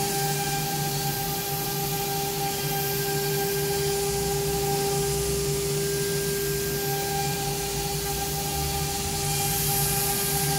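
SUDA MC1325-G3 CNC router engraving aluminum sheet, its spindle running steadily: a continuous whine of several held tones over an even hiss.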